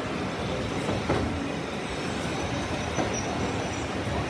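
Railway passenger coaches rolling slowly past as the train pulls into the station: a steady rumble of wheels on rail, with a couple of knocks as the bogies run over rail joints.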